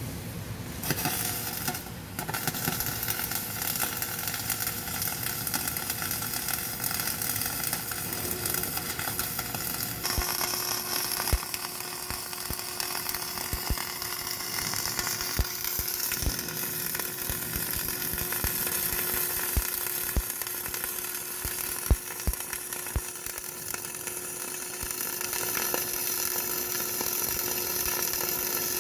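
CO2 gas-shielded MIG welding arc sizzling and crackling steadily, with scattered sharp pops from about a third of the way in.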